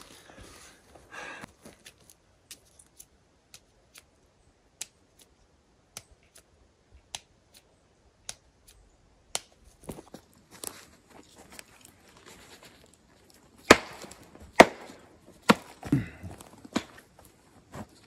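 Footsteps and snapping twigs on a forest floor strewn with branches and debris: a string of sharp clicks and cracks, with a cluster of louder snaps and knocks a few seconds before the end.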